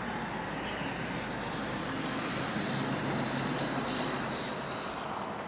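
Steady outdoor background noise of distant road traffic, a broad hiss with a low hum, and a faint high whine over it.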